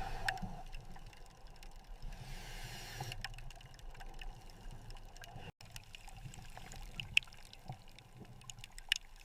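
Faint water sounds, a soft trickling wash, with scattered small clicks and taps.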